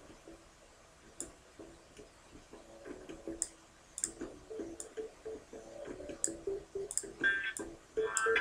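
A few scattered sharp clicks over faint background noise. Soft plucked guitar notes come in during the second half and get louder near the end.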